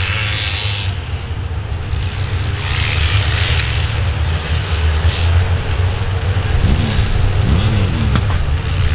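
A pack of sidecar motocross outfits racing past under full throttle, their motorcycle engines running hard. Engine pitch rises and falls twice near the end as riders roll off and open the throttle.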